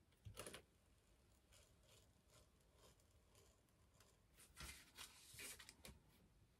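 Faint scratching of an X-Acto craft knife blade slicing along a drawn line in a sheet of bag-making material: a short stroke near the start, then a run of several strokes about four and a half to six seconds in.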